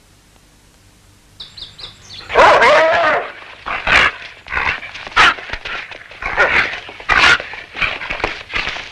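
A dog barking and yelping again and again, starting about two seconds in: one longer call first, then a run of shorter barks.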